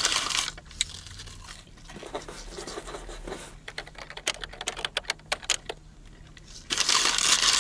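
Paper fry carton rustling and crinkling in two loud spells, one at the start and one near the end. In between comes a run of quick small clicks.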